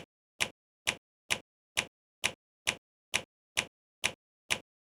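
Stock keycaps being pulled off an ROG mechanical keyboard one after another, each coming off with a short sharp click, about two a second in an even rhythm.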